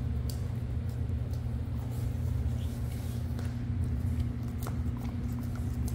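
A husky licking ice cream from a small cup, giving scattered soft wet clicks and ticks, over a steady low hum that is louder than the licking.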